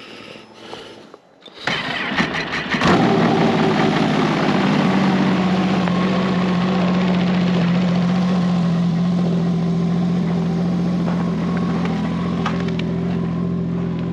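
Snowmobile engine cold-started in deep cold: the starter cranks for about a second, the engine catches and then settles into a steady idle.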